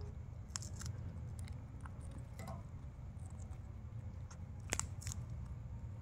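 Ring-necked parakeet biting into a green chilli: scattered sharp, crisp crunches of the beak cutting the pod, loudest as a close pair near the end, over a steady low hum.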